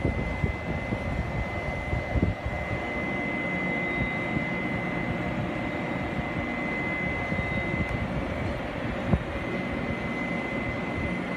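Taiwan Railway E200-class electric locomotive standing and running: a steady drone with a high, steady whine over it, and a few short knocks.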